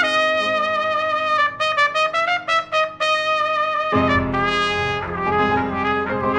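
Live jazz trio: a trumpet carries the melody, with a quick run of short repeated notes in the middle. Upright bass and piano accompany it, and the bass comes in strongly about four seconds in.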